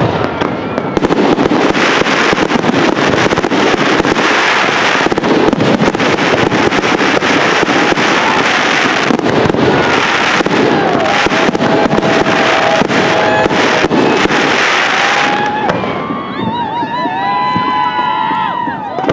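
Fireworks display in full barrage: a dense, continuous run of shells bursting, bangs and crackle overlapping. About three-quarters of the way through it thins out, and a few short wavering whistles are heard near the end.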